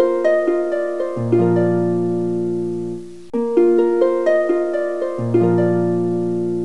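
Background music: a gentle melody of plucked notes, harp-like, playing a short phrase that loops and starts over about halfway through, with a low bass note joining partway through each pass.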